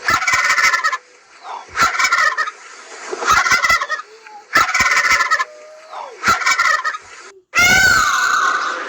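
Turkey-gobble ringtone from an animal ringtones app: five loud gobbles about a second and a half apart. Near the end a different call with wavering, sliding pitch begins.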